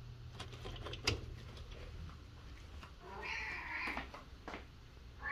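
A cat meowing once, a drawn-out call of about a second starting about three seconds in. Before it, a few sharp clicks, the loudest about a second in, as window shutter louvers are handled.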